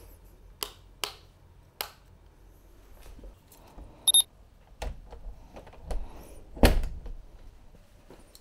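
A few sharp clicks, then a short double electronic beep about four seconds in as a finger presses a button. Several dull thumps follow, the loudest near the end.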